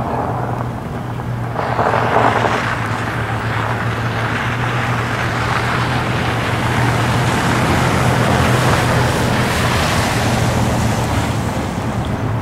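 A car driving past on a snow- and slush-covered road, its tyre noise swelling as it comes near and easing as it goes away, over a steady low hum.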